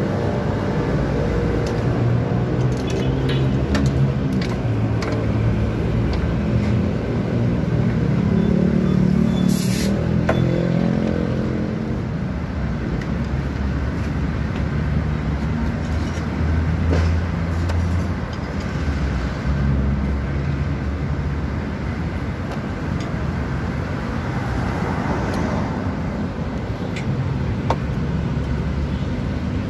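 A motor vehicle engine runs steadily, its pitch wandering over the first dozen seconds, with a few sharp clicks from a wrench being worked on metal.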